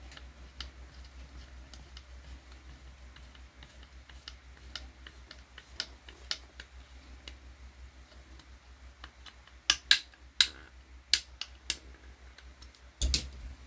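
Light clicks and taps of a hex driver and small screw hardware against an RC car's carbon-fibre chassis as a screw is driven in by hand, with a few sharper clicks about ten seconds in and a short clatter near the end as the chassis is handled.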